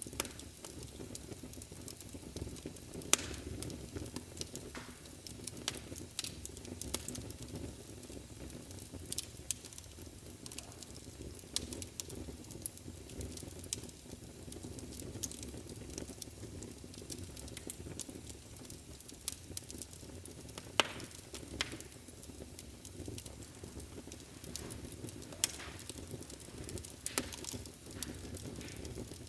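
Wood fire burning in a fireplace: a steady low hiss with frequent irregular crackles and a few sharper pops, one about three seconds in and another near the middle.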